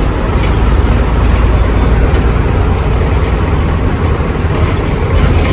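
Moving bus heard from inside the passenger cabin: a steady, loud engine and road rumble, with light ticks scattered through it.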